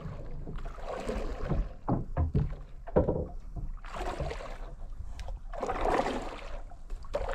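Water splashing and sloshing at the side of a small wooden fishing boat, in several separate surges about a second or two apart, over a steady low rumble.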